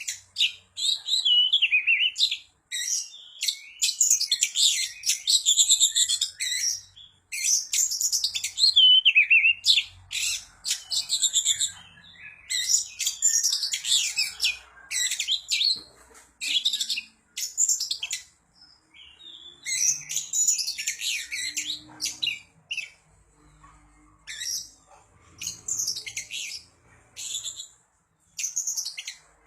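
Oriental magpie-robin (kacer) in full song, delivering rapid, loud phrases of varied chirps, trills and mimicry-like notes in bursts of a second or two with short pauses between. It also gives a few clear whistles that slide downward.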